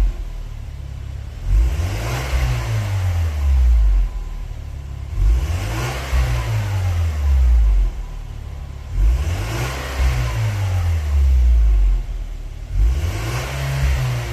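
Luxgen U6 GT220's turbocharged 1.8-litre four-cylinder, breathing through an aftermarket header with metal catalytic converter and a single-canister, single-outlet muffler, revved four times, each rev climbing quickly and then falling slowly back to idle.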